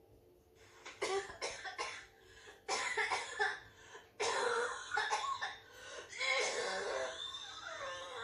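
A recorded clip of a person coughing, played back. It is a run of coughs starting about half a second in, short single coughs at first and then longer coughing fits.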